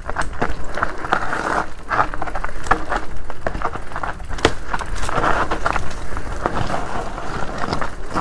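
Specialized Turbo Levo SL e-mountain bike riding down a rough trail: a steady rush of tyres on dirt and rock, with many sharp knocks and clatters from the bike over bumps.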